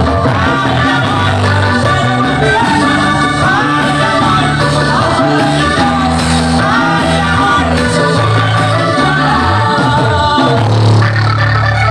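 Live vallenato band playing a paseo: a woman singing over a diatonic button accordion, guitars and hand percussion, at full volume without a break.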